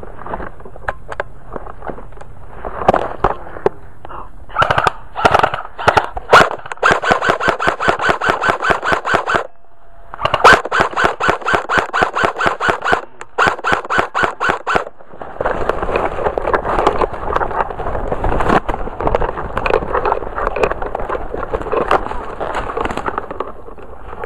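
Airsoft electric rifle firing: a few single shots, then two long bursts of rapid full-auto fire, followed by a longer, less regular rattle of continued fire.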